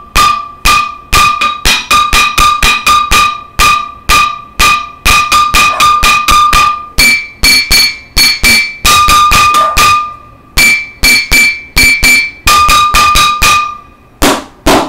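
Wooden spoons drumming on a stainless steel cooking pot in a steady rhythm of about three strikes a second, each leaving a bright metallic ring. The ringing note jumps higher for a couple of stretches and drops back. Near the end come a few duller strikes without the ring.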